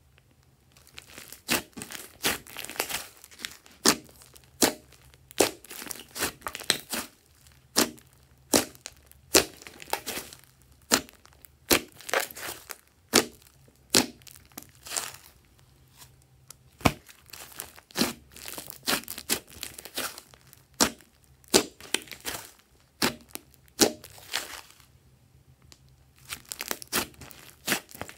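Hands kneading and squeezing thick slime with clay mixed in, giving sharp pops about once or twice a second as air pockets burst, over a sticky crackling. It starts about a second in and pauses briefly near the end.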